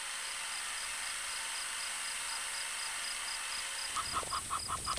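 Steady high hiss of background ambience; about four seconds in, a fast, regular series of short chirping calls begins, about five a second.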